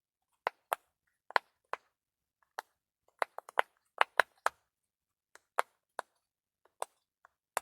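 Sharp, crisp clicks from a handheld ASMR trigger object, about twenty at uneven intervals, coming quickest in the middle.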